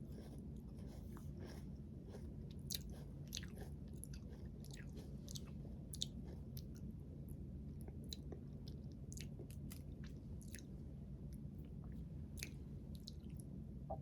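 A person chewing and biting food close to the microphone, with scattered small crunchy clicks, over a low steady hum.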